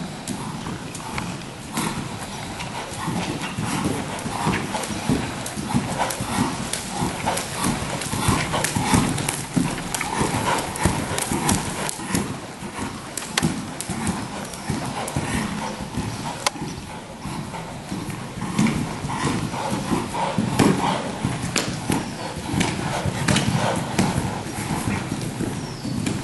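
Hoofbeats of a KWPN (Dutch Warmblood) gelding trotting under a rider on the sand footing of an indoor arena, a continuous run of thuds with occasional sharper clicks.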